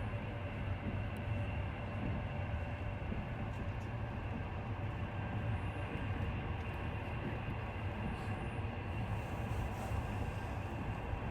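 Steady, unbroken rumbling noise, heaviest in the low end, with no distinct events: a continuous white-noise-style ambient track.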